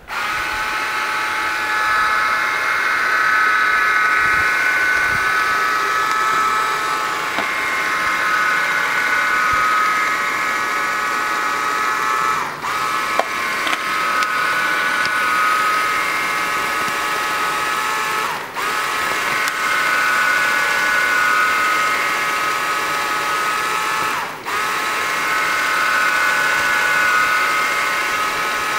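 Panasonic RULO robot vacuum running: a steady, high motor whine from its suction fan and brushes. Three times, about six seconds apart, the whine dips briefly, its pitch sagging and swooping back up.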